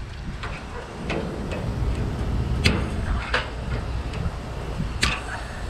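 Hand snips cutting and prying at the copper tubing and aluminium fins of a condenser coil: a few sharp metallic snaps and clicks, the loudest a bit under three seconds in, over a steady low rumble.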